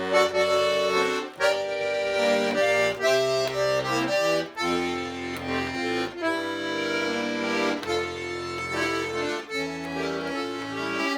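Instrumental interlude between sung verses of a Russian folk song: a melody played over held chords and bass notes that change about once a second.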